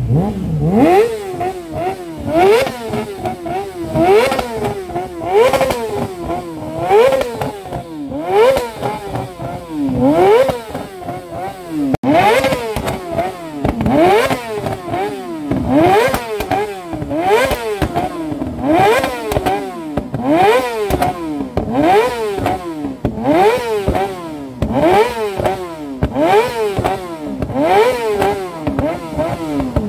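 Motorcycle engines revving over and over, each rev climbing in pitch and dropping back, about once a second.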